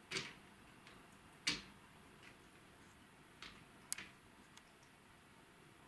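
A window-blind wand clicking and knocking as a cat bites and paws at it: a handful of sharp, irregular clicks, the loudest about a second and a half in.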